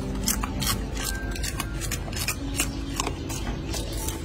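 Golden snub-nosed monkeys biting and chewing crisp celery stalks: quick, irregular, crisp crunches and snaps.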